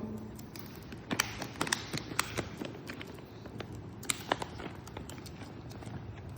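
A beagle making irregular light clicks and taps, thickest in the first half and thinning out after about four seconds.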